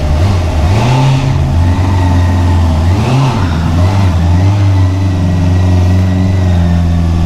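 Honda CBR650R's 649cc inline-four engine on its stock exhaust, running under way; its pitch rises and falls briefly about a second in and again around three seconds, then holds steady.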